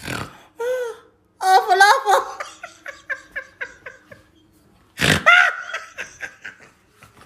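A man laughing hard in two loud bouts, one about a second and a half in and another about five seconds in, each trailing off into quick, fading ha-ha pulses.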